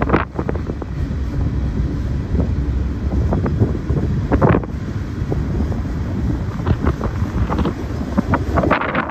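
Wind buffeting the microphone over the steady low rumble of a passing train, with scattered clicks and knocks throughout.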